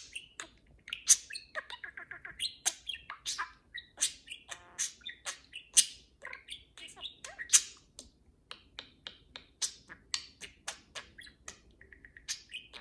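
Two budgerigars chattering face to face: a quick, unbroken stream of short sharp chirps, clicks and buzzy warbles.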